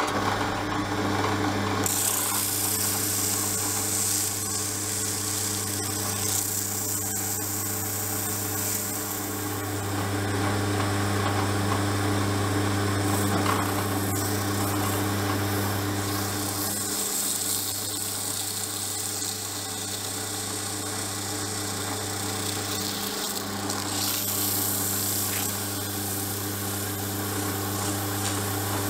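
Drill press motor running steadily with a low hum, spinning a small steel part held in its chuck. From about two seconds in, a rough rubbing hiss joins as the spinning part is worked by hand to polish it.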